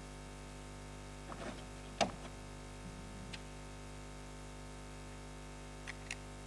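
A few light clicks and taps of a small glue tube and 3D-printed plastic part being handled during gluing, the loudest a sharp click about two seconds in, over a steady low hum.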